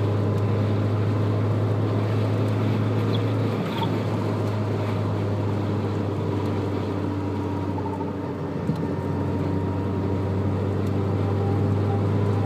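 Toyota Corolla FX16 GT-S with its 1.6-litre twin-cam four running as a steady low drone, with one short knock about two-thirds of the way through. The car has clunks, vibrations and occasional chirping from the front end, worse in gear, which the owner suspects come from the CV axles.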